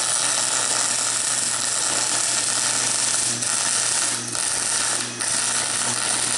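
MIG welder with shielding gas laying a continuous weld bead: the steady crackling sizzle of the arc over a low hum, dipping briefly a few times as the weld runs on. It is a Thermal Arc welder, joining a caster onto a steel dolly.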